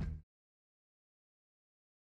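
The last low notes of the background music cut off a moment in, then dead digital silence.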